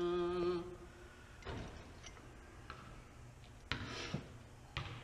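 Marzocchi 48 mm motorcycle fork tubes being worked apart to free the oil seal: metal sliding and scraping, with a clunk about four seconds in and a lighter knock near the end. A short hummed note comes at the very start.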